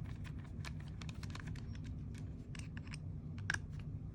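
Light, irregular clicks and taps of small parts and tools being handled on an airsoft gearbox, over a steady low hum.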